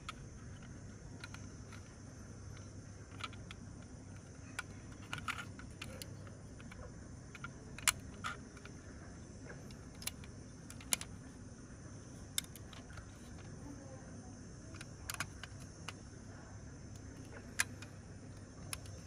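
Small sharp clicks and taps of a toy ambulance being handled, its little hinged rear and side doors swung open and shut by hand; about a dozen scattered clicks, the loudest about 8 and 11 seconds in, over a faint steady low hum.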